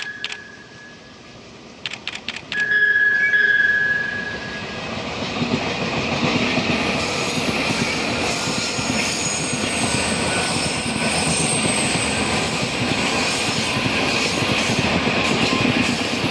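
Taiwan Railways train passing at high speed: a short, loud, high horn blast about three seconds in, then the rumble and high rail noise of the train going by, building over a few seconds and holding steady.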